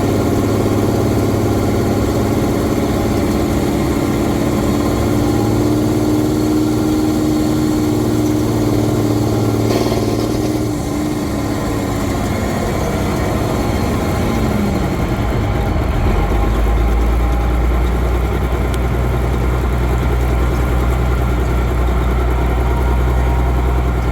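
M35A2 deuce-and-a-half truck's multifuel diesel engine running steadily during a road test. About two-thirds of the way through its pitch falls and a deeper low drone takes over.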